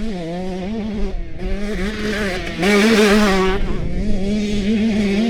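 Husqvarna TC two-stroke motocross bike engine revving under throttle as the bike is ridden. The pitch wavers up and down around a high steady note, and it gets louder about two and a half seconds in.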